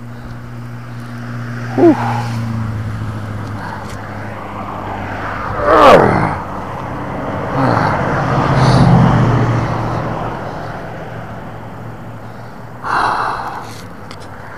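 A man straining and grunting hard while hauling a heavy magnet-fishing catch up on a rope, hand over hand. Two loud groans falling in pitch come about 2 and 6 seconds in, and a short grunt comes near the end. A low rumble swells and fades around the middle.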